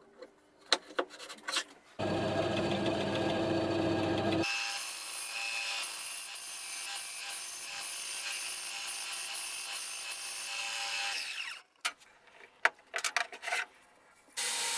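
A small benchtop bandsaw cutting a circle out of a thick end-grain birch plywood checkerboard blank on a circle-cutting jig. The saw comes in about two seconds in with a hum, then cuts with a steady hiss for about seven seconds and stops abruptly. Light taps and clicks of the workpiece being handled come before and after.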